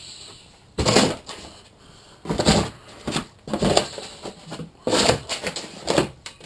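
Shipping packaging around new steel wheels being pulled and torn open by hand: about six short rustling, scraping bursts with pauses between them.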